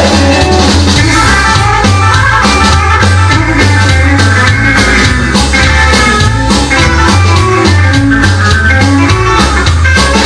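Spanish rockabilly record playing loud, with guitar and drums over a steady beat.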